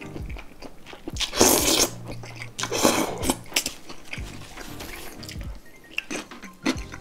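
A person slurping noodles from cold soy-milk broth, with two loud slurps about a second and a half and three seconds in, then chewing with crunchy bites.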